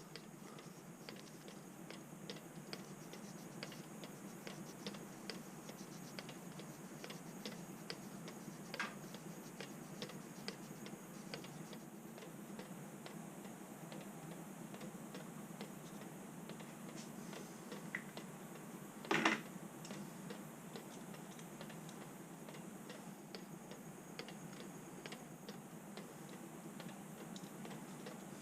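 Faint, irregular light ticking and clicking, with a short louder knock about two-thirds of the way through.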